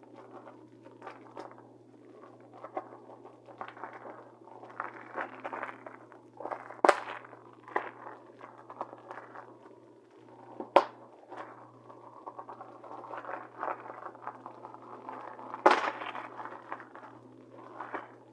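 Packaging crinkling and rustling as it is handled and opened, with three sharp clicks standing out about seven, eleven and sixteen seconds in.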